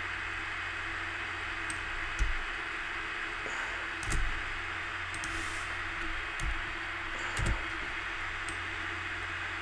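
Steady hiss of microphone and room noise with a faint hum, broken by four soft low knocks from working the computer keyboard and mouse, about two, four, six and a half, and seven and a half seconds in.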